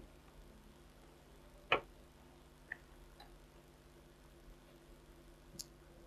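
A sharp click about two seconds in and a couple of fainter ticks, over a quiet room with a faint low electrical hum.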